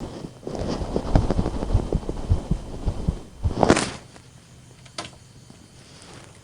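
Close-miked eating sounds: a dense run of low thumps and small clicks for about three seconds, then one louder, brighter smack, after which it goes quiet apart from a few faint clicks.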